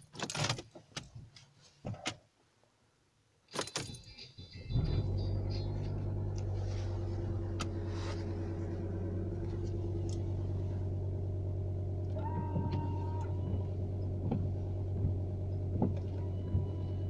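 Volkswagen Touareg interior: a few clicks as the ignition is switched on, then the engine starts about four seconds in and settles into a steady idle. Later the windshield wipers sweep across the glass over the idling engine.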